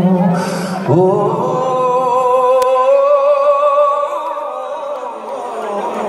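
Live concert music: a male singer holds one long note with vibrato for several seconds over a soft, steady accompaniment.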